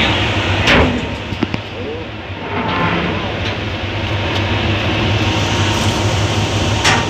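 Steady low hum of engines and machinery with voices in the background, broken by two short, sharp noises about a second in and near the end.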